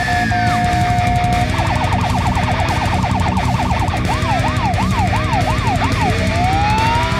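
Electronic emergency-vehicle siren cycling through its patterns: a steady tone, then about a second and a half in a fast warble of roughly eight cycles a second, then slower up-and-down sweeps, and near the end a long rising wail. A steady low rumble runs underneath.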